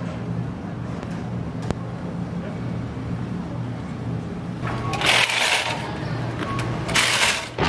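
A vehicle engine idling steadily with a low hum, with a single click early on and two brief loud hissing rushes about five and seven seconds in.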